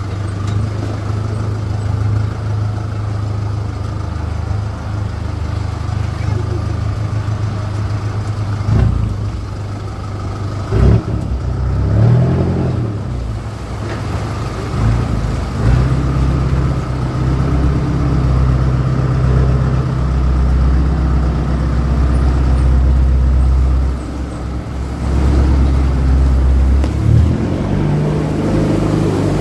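A 4x4's diesel engine running on an off-road trail, its revs rising and falling several times under load, with a couple of short knocks from the vehicle.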